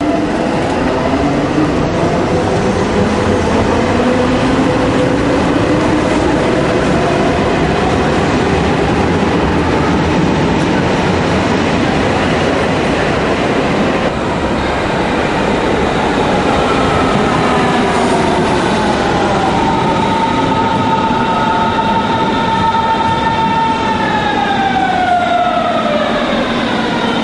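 Berlin S-Bahn electric train, its motor whine rising in pitch as a train gathers speed. After a cut about halfway, an arriving train's whine slides slowly down in pitch, then falls away quickly near the end as it brakes to a stop at the platform.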